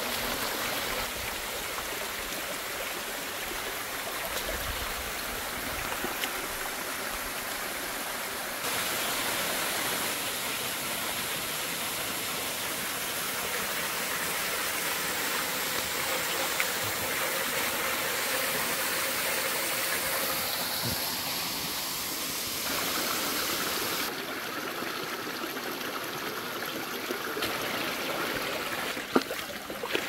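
Mountain stream water running over rocks and splashing down small cascades, a steady rushing that shifts in level a few times.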